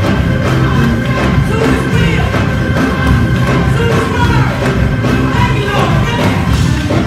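Live church worship music: a band playing with a steady beat while voices sing.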